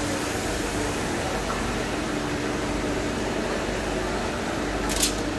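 Hanwha Techm XP12S CNC Swiss-type lathe running with a steady machine hum and a constant low tone. A brief hiss comes near the end.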